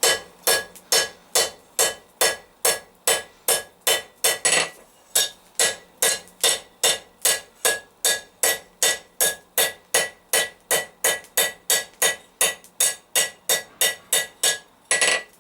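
Blacksmith's hand hammer striking hot steel bar on an anvil in a steady rhythm of about two to three blows a second, each blow ringing; the steel is being knocked down at the corners and formed into a leaf. There is a short break just before the fifth second and another near the end.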